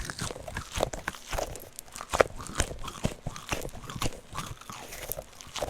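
Cat-shaped Nee-Doh squishy stress toy being squeezed and kneaded close to the microphone, making a dense, irregular crackling and crunching.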